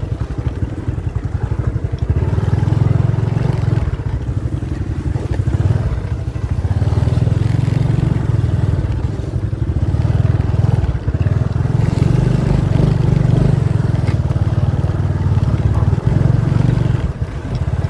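Motorcycle engine running steadily as it is ridden along a dirt road, with a couple of brief dips where the throttle eases off.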